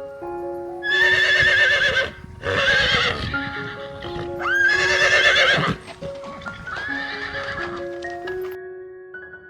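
A horse whinnying four times, each call a loud wavering neigh, over soft piano music.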